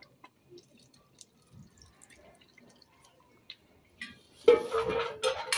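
Faint drips and small clicks, then about four and a half seconds in a loud metallic clatter with a brief ringing tone as a metal bowl is set down against aluminium pot lids, and a second sharp clank just after.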